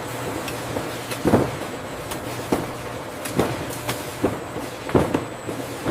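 A sorting machine on a banana packing line running with a steady hum, with irregular clanks and knocks about one or two a second.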